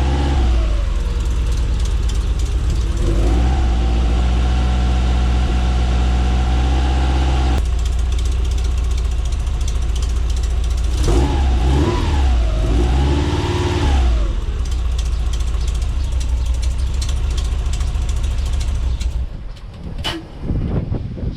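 Subaru engine in a VW T3 Kombi idling and being revved: a quick blip at the start, revs raised and held for a few seconds, then two more blips, settling back to a steady idle. It is running cleanly now that the injector wiring cut during the LPG removal is reconnected. About two seconds before the end the engine is switched off and a single knock follows.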